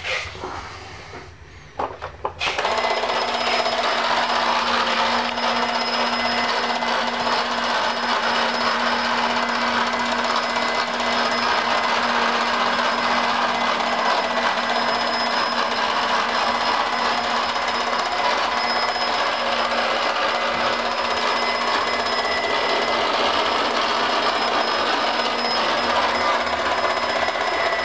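Vintage Deluxe Reading Battlewagon B-400 toy battleship's battery-powered mechanism running: after a few clicks, a steady, rapid mechanical rattle with a hum starts about two and a half seconds in and keeps going.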